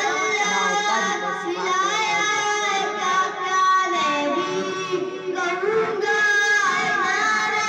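A young boy singing a naat, an Islamic devotional poem, solo into a microphone, with long held notes that waver and glide in pitch.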